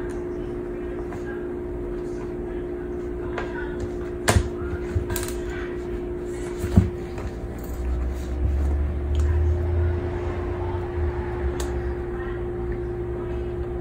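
A Bengal cat wrestling a running shoe: scuffs and a few sharp knocks of the shoe on the floor, the loudest about seven seconds in, then a low rumble for a couple of seconds, over a steady hum.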